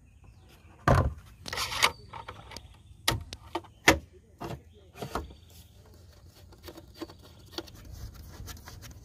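Handling noises from an electric outboard's plastic tiller and fittings as a power cable is plugged into its head: a string of sharp clicks, knocks and a short scrape over the first five seconds or so, then only faint ticks.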